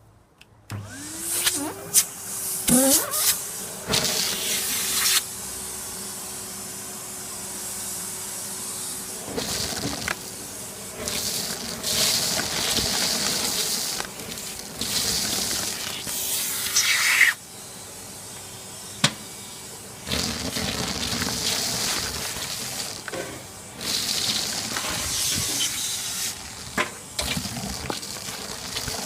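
A Numatic NRV180 vacuum cleaner switches on about half a second in, its motor whine rising in pitch and then holding steady. It runs on with stretches of loud hissing suction that come and go, and scattered clicks and rattles as it sucks up debris from inside a barbecue.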